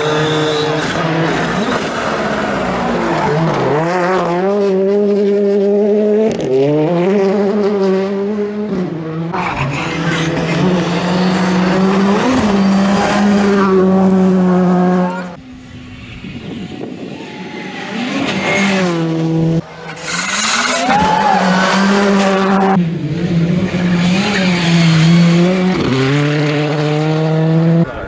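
Rally cars at full throttle, one of them a Ford Fiesta R5, passing in turn. Each engine climbs in pitch and drops back at every upshift. The sound changes abruptly a few times as it cuts from one car to the next.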